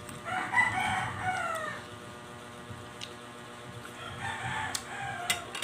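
A rooster crowing: one call of about a second and a half just after the start, then a fainter call about four seconds in. A couple of sharp clicks near the end.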